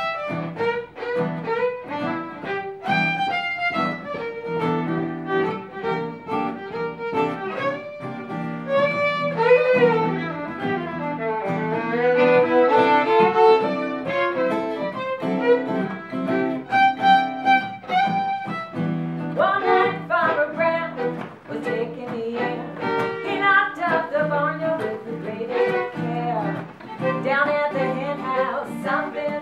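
Fiddle playing a tune in G, quick bowed notes moving over held lower notes.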